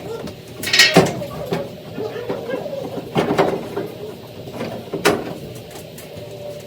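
Metal clicks and knocks from dryer parts being handled and fitted back in place, in a few separate bursts, over a faint steady hum.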